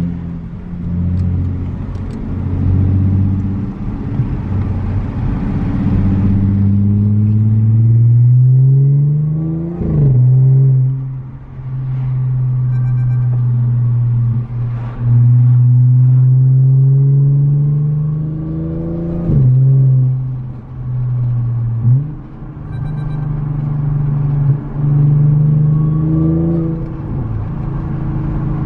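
Stage 2 Audi S5's supercharged 3.0-litre V6, exhausting through an X-pipe with the muffler deleted, pulling under throttle: its pitch climbs steadily, drops suddenly at gear changes about ten, nineteen and twenty-two seconds in, and holds nearly steady in between.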